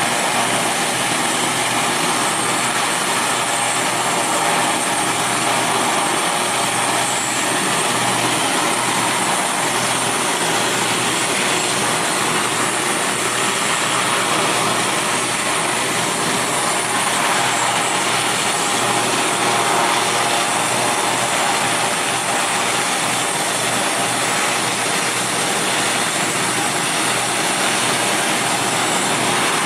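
Panavia Tornado jet's engines running at taxi power: a steady jet whine and rush that does not change much as the aircraft rolls slowly along.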